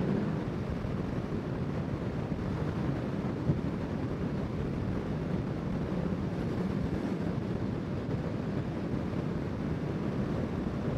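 Steady rush of gusty wind over the microphone of a Honda CBR650R motorcycle riding at road speed, with the bike's running and road noise underneath.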